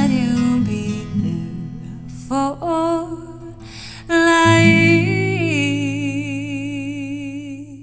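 Acoustic guitar and a woman singing. Near the end she holds a long, wavering last note while the song fades out.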